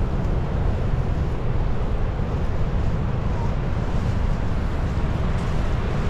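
Steady rushing noise with a heavy low rumble: wind buffeting the microphone over the distant roar of Iguazu Falls.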